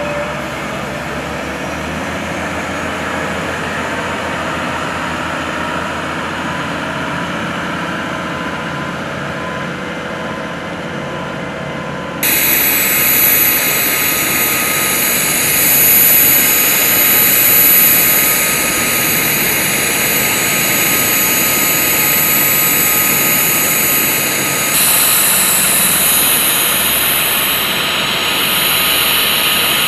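A military forklift's engine running as it carries a pallet, then, after a sudden cut about twelve seconds in, the louder, steady high-pitched turbine whine of a CH-47 Chinook helicopter.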